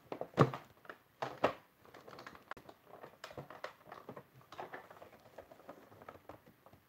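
Clicks, knocks and rustling of a small plastic toy house being handled and opened by hand, with two louder knocks in the first second and a half.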